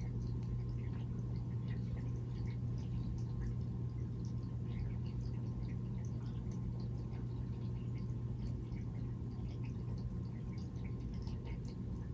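A sleeping cat's breathing, heard as a steady low hum with many small wet clicks scattered through it.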